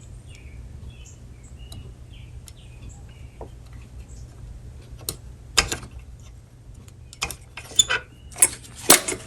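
Sharp clicks and taps of small metal parts as a piece of a jukebox popularity-meter mechanism is worked into place: about six of them, in the second half, the loudest near the end. Faint bird chirps in the first half.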